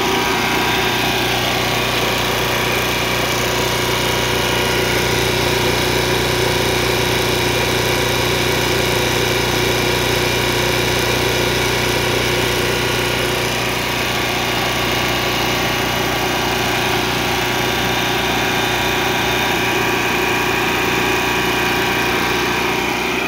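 Kohler 5EKD fuel-injected marine generator running steadily at constant speed with its soundproofing enclosure off.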